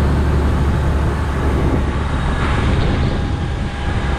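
Engine and road noise heard inside a moving truck's cab: a steady low drone under a rushing haze, with the drone easing a little about halfway through.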